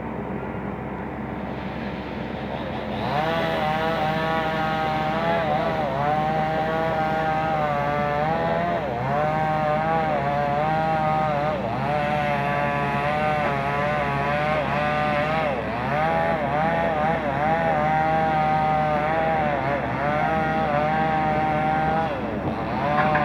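Diesel engine of a Komatsu PC130F-7 excavator running hard. It grows louder about three seconds in, then its revs sag and recover again and again as it takes load.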